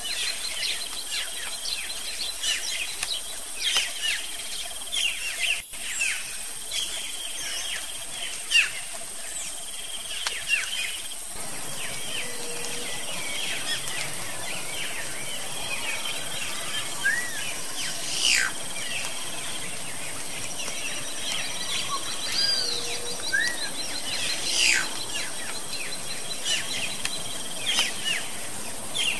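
Many birds chirping and calling in short, quick notes over a steady high insect drone. The background noise changes about eleven seconds in.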